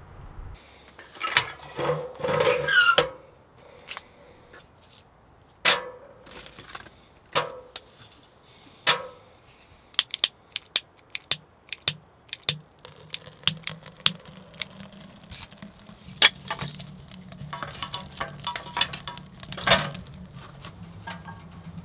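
Lighting a small steel wood-burning stove: metal knocks and scrapes as the stove and wood are handled, then a quick run of sharp clicks as a long-neck lighter is fired in the firebox. After that the kindling catches with a low steady rush and scattered crackling.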